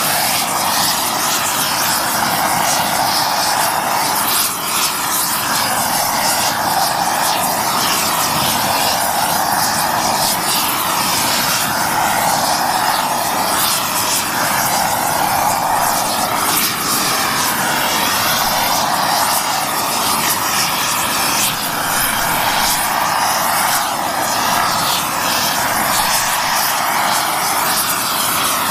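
Oxy-fuel heating torch burning steadily, a loud, even rushing flame noise as it preheats a cast iron pump housing for brazing.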